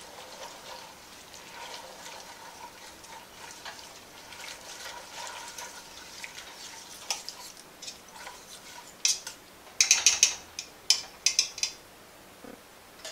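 Wire whisk stirring milk into flour and vegetables in a stainless steel stock pot: a soft, wet swishing and scraping. From about nine seconds in, a run of sharp metal clinks as the whisk knocks against the pot.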